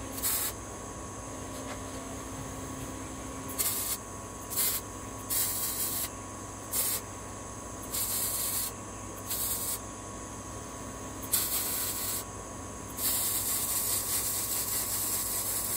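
MIG welding on steel: the arc hisses and crackles in nine short welds of under a second to about three seconds, the longest at the end.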